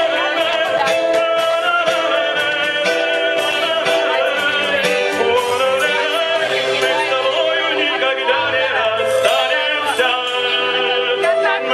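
Live band music: a man sings over keyboard and flute, with wavering, sustained vocal notes.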